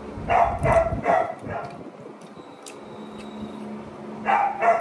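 Dog barking: three quick barks in the first second and a half, then two more a little past four seconds in.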